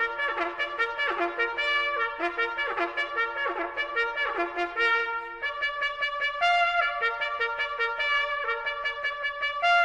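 Brass music led by a trumpet, playing quick runs of notes with several notes sounding together.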